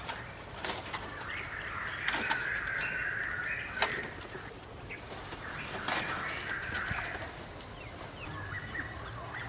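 A few sharp knocks and some rustling as bamboo poles are handled and fitted in a palm-thatched roof frame.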